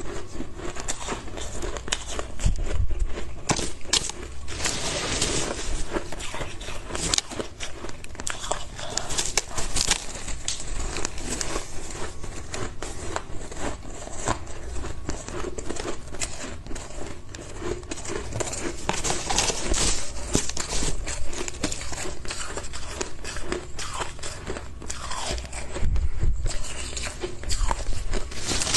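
Shaved ice being bitten and chewed: dense, irregular crunching and crackling, with hands scooping and squeezing the loose ice.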